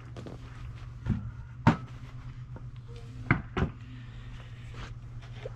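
Four sharp knocks and clunks from a circular saw and lumber being handled, the loudest about a second and a half in and again past three seconds, over a low steady hum. The saw's motor is not running.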